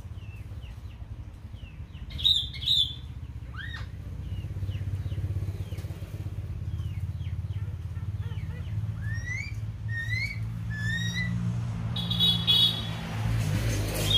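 Caged laughingthrush (khướu đầu bạc) singing: a string of short chirps, two loud calls about two seconds in, and three upward-slurred whistles in a row near the middle, with another loud call near the end. A motor vehicle engine hums low in the background and grows louder near the end.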